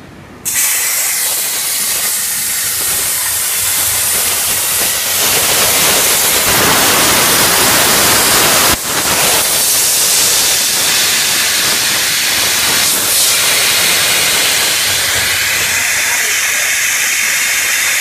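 CNC plasma cutting torch cutting thin steel sheet: a loud, steady hiss of the plasma arc and compressed air that starts abruptly about half a second in, with a brief break just before nine seconds.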